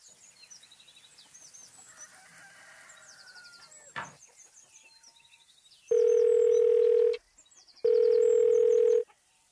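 Ringback tone of an outgoing mobile phone call: a loud steady beep of about a second and a half, heard twice with a short gap, starting about six seconds in, while the called phone rings unanswered. Before it come faint bird chirps and one sharp click about four seconds in.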